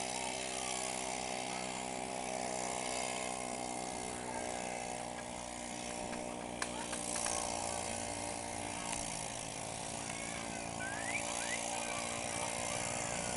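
ATV engine running at a steady speed, holding an even pitch, with one sharp click about six and a half seconds in.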